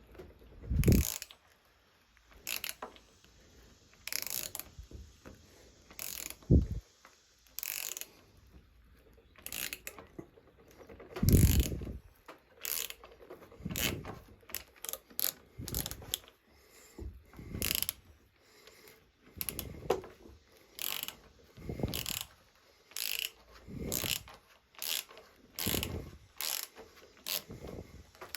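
Ratcheting wrench clicking in short bursts, about one a second in the second half, as it turns a 1/8-inch NPT tap cutting fine threads into a pipe wall.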